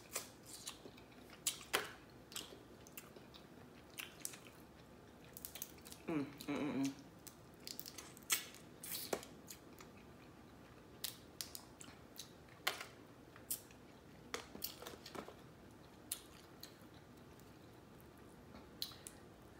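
Close-up eating of cooked blue crabs: sharp, irregular cracks and clicks of shell being broken and picked apart by hand, among soft wet chewing and smacking. About six seconds in there is a short hummed voice sound.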